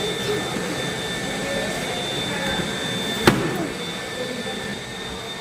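Numatic vacuum cleaner running, a steady motor hum with a constant high whine. A sharp click about three seconds in, and the sound eases off a little near the end.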